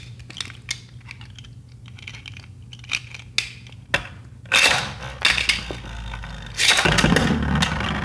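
Scattered plastic clicks as the Beyblade tops are set up and fitted to their launchers. About halfway through, the tops are launched with a ripping whir. They spin and clash in a plastic stadium, a sustained rattling whirr that grows louder near the end.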